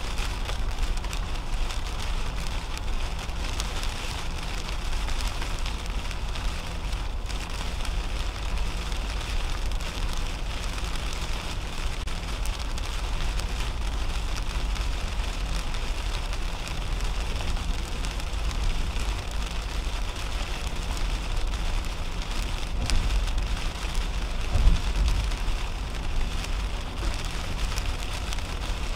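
Rain falling on the windshield and roof of a 2010 Toyota Camry driving on a wet highway, with steady tyre noise and low road rumble, heard from inside the cabin. A brief low thump comes about 25 seconds in.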